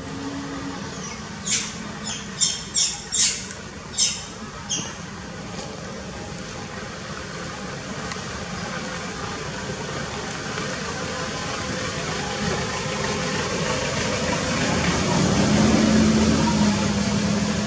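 A run of about seven short, high-pitched macaque squeals within a few seconds. These are followed by a steady hiss with a low hum that grows louder near the end.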